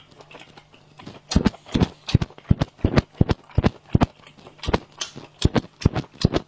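Someone eating spicy stir-fried shellfish with loud sucking and lip-smacking sounds. About twenty quick, sharp smacks come in irregular succession, starting about a second in.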